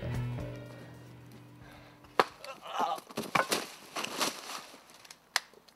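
Music fading out, then a string of about eight irregular sharp wooden cracks and snaps.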